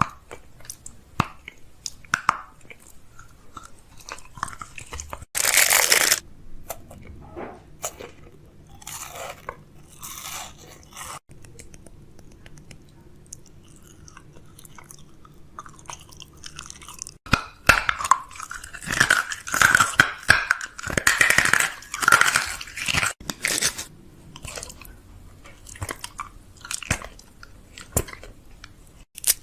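Chewing and crunching, heard close up, as crisp food is bitten and crushed in irregular crunches. It is busiest in the second half.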